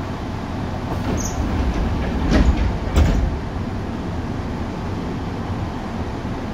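Tokyu 8500 series electric train running, heard from inside the car: a steady low rumble of wheels and running gear. A few sharp knocks come between about one and three seconds in, the loudest near the middle.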